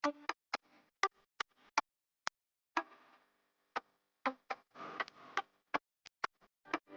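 Kitchen utensils clinking and tapping against cookware in an irregular series of sharp clicks, some leaving a brief metallic ring.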